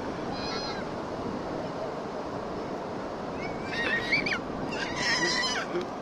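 Waves breaking on the beach in a steady wash of surf. A small child squeals twice, high-pitched and wavering, a little past the middle.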